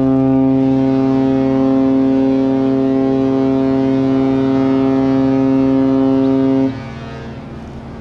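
Cruise ship MSC Orchestra's horn sounding one long, low blast of almost seven seconds as the ship gets under way, then cutting off sharply. A long blast like this is the ship's departure signal.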